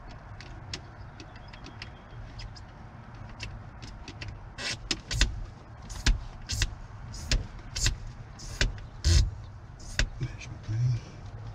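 Irregular clicks and knocks inside a Piper Cherokee 180's cockpit with the engine not yet running, over a steady low hum; the clicks come thick and loud from about halfway through, the heaviest near the end.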